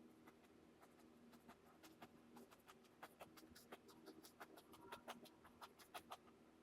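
Faint quick taps and ticks of a fan brush dabbing oil paint onto canvas. They thicken to several a second from about the middle on.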